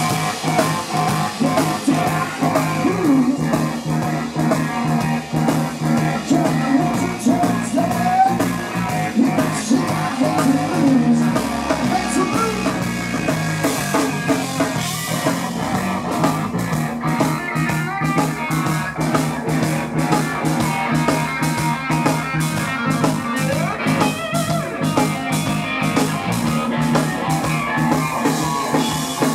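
Live blues-rock trio playing: electric guitar with bending notes over bass guitar and a drum kit, picked up by a handheld camera's microphone in the audience.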